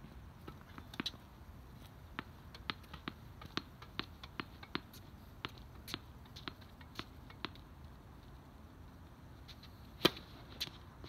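Tennis court sounds: a run of short sharp taps of a tennis ball and shoes on the court, a few a second, then a lull and one much louder crack about ten seconds in.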